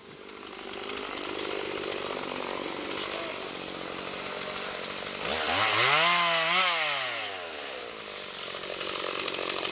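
Petrol chainsaw engine running, revved up to full throttle about five seconds in, held briefly, then let back down to a lower, steady running note.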